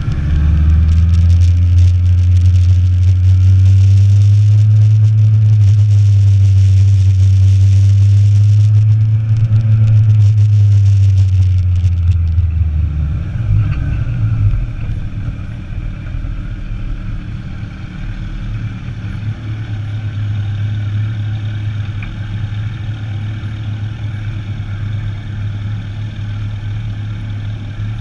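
Motorcycle engine running loud and steady under way, with a high hiss over it, then about thirteen seconds in the engine drops to a quieter, steady low running.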